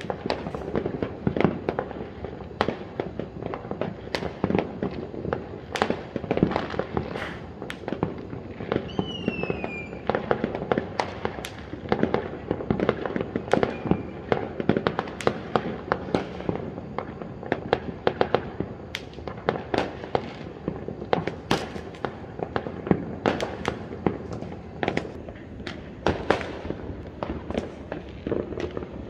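Fireworks and firecrackers going off all around in a continuous run of bangs and pops, with a short falling whistle about nine seconds in.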